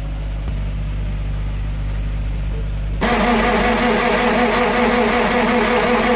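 A steady low engine hum, then about three seconds in a large six-litre diesel generator engine is cranked by its starter, whirring with a pulsing beat without catching. It won't fire because its high-pressure fuel pump gives too little pressure to open the injectors.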